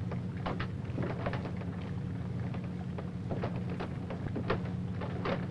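Low steady drone of a boat's engine, with faint scattered clicks over it.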